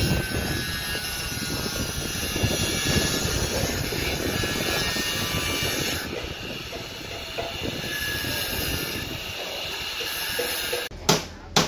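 Handheld angle grinder grinding a steel bar, a steady rough grinding noise. Near the end it cuts off and a couple of sharp hammer blows on metal follow.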